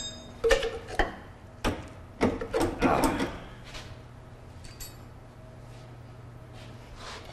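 Metal knocks and clanks of tools being worked against the metal frame of a KUKA industrial robot, a handful of sharp knocks in the first three seconds or so, then quieter with a low steady hum.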